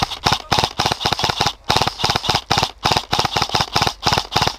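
Quick, regular clattering rattle, about five or six knocks a second, the sound of an airsoft player's loaded gear and footsteps jolting as he moves fast.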